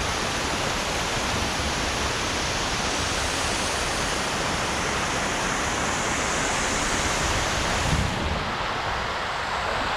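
Small waterfall with water pouring and splashing in a steady rush.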